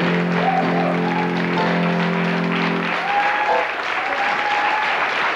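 Studio audience applauding while the final chord on a grand piano rings out, the chord ending about three seconds in.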